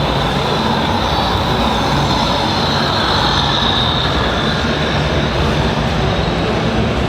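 Steady mechanical whirring with a high whine that swells slightly midway, from radio-controlled construction models' electric motors and hydraulic pumps running.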